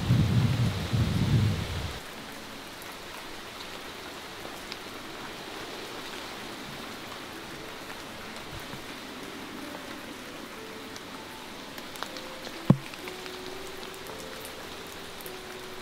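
Steady rain falling on garden plants. A low rumble opens and stops abruptly about two seconds in, and a single sharp knock comes near the end.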